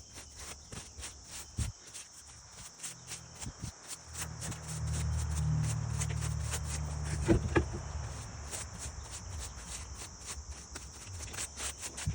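Crickets chirping in a fast, steady pulsing. A low hum joins about four seconds in and fades away after about eight seconds, with a couple of sharp clicks near the middle.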